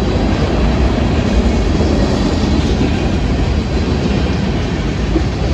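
Freight train cars, boxcars and tank cars, rolling past: a steady loud rumble of steel wheels on the rails.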